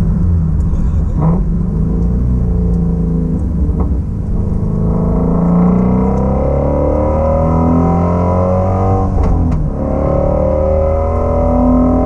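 The 2016 Shelby Mustang GT350's 5.2-litre flat-plane-crank 'Voodoo' V8, heard from inside the cabin while driving. The engine note climbs from about five seconds in, dips briefly a little after nine seconds, then climbs again.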